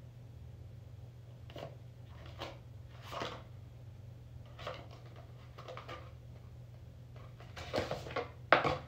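Light scrapes and rustles of a cardboard earbud box and plastic charging case being handled: a few short, spaced-out sounds, then a quicker cluster near the end with one sharp click. A steady low hum runs underneath.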